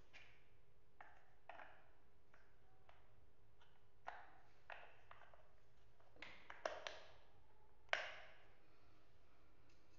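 Large plastic building blocks clicking and tapping as they are handled and pressed onto the bench's top plate: scattered light clicks, the loudest about eight seconds in.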